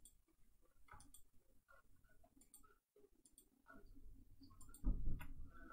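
Computer mouse and keyboard clicks while editing in Blender: scattered single clicks and key presses for Alt+click loop selection and the S and Y scale keys. A louder low bump comes about five seconds in.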